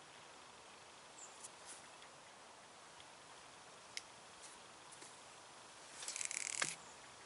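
Sänger Iron Claw X-ACT 2.0 baitcasting reel whirring briefly, a dense rapid clicking of under a second near the end, with a few faint single clicks before it.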